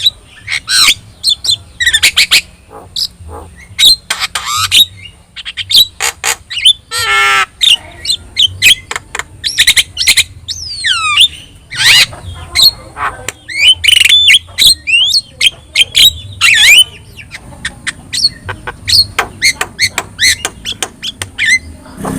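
Javan myna (jalak kebo) singing a rapid, varied stream of sharp clicks, squawks and short whistles. A harsh buzzy call comes about seven seconds in, and a run of gliding whistles follows a few seconds later.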